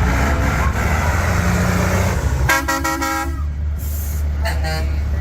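A heavy diesel truck engine running, with a truck air horn blown twice: a blast of about a second in the middle, then a short toot about a second later.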